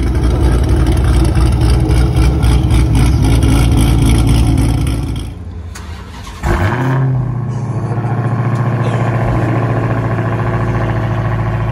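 A loud car engine runs for the first five seconds, then drops away. About six and a half seconds in, a Dodge Challenger SRT Hellcat's supercharged V8 cranks and fires with a quick rise in revs, then settles into a loud, steady idle.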